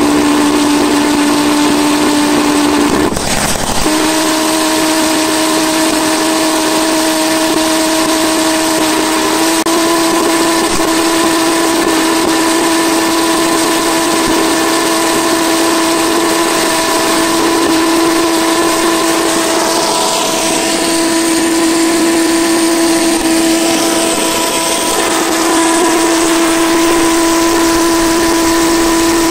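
Tesla-valve pulse jet engine running with a loud, steady buzz. It falters for under a second about three seconds in, then catches again at a slightly higher pitch that creeps up over the rest of the run.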